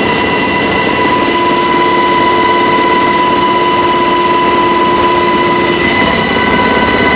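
UH-60 Black Hawk helicopter in flight, heard from inside the cabin: a loud, steady rush of rotor and engine noise with a steady high whine running through it.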